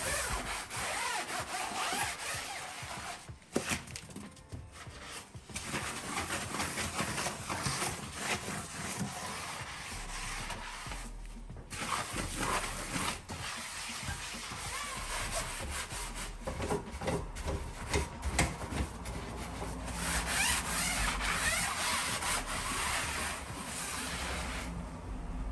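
Sponge scrubbing a stainless steel gas hob covered in wet, foamy degreaser: a rasping rub in repeated strokes, with a few short pauses.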